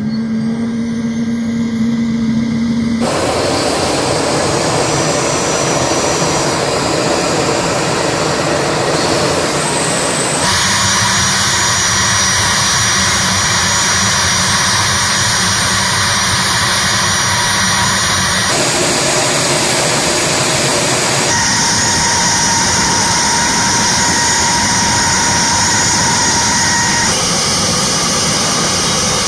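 A-10C Thunderbolt II's General Electric TF34 turbofan engines running on the ground: a loud, steady rush of jet noise with high whining tones, its balance changing abruptly several times.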